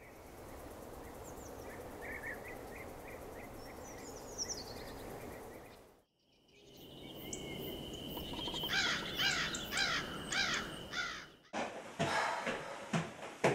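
Outdoor forest ambience with short bird chirps, then a brief silence. A second stretch of ambience follows, with a steady high whistle and a run of about seven quick sweeping bird calls. Near the end come a few sharp knocks.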